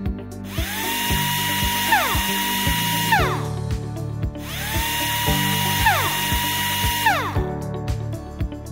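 Toy power drill whirring twice, about three seconds each time: it spins up to a steady whine and winds down again. Background music with a steady beat plays underneath.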